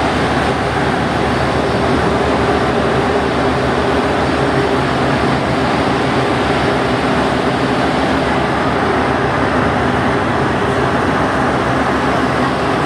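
Alstom NS-93 rubber-tyred metro train running through a tunnel at steady speed, heard from inside the cab: a steady rumble with a constant low hum.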